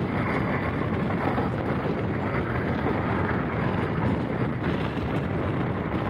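Passenger train running at speed, a steady rumble of wheels on track mixed with wind rushing over the microphone at an open door.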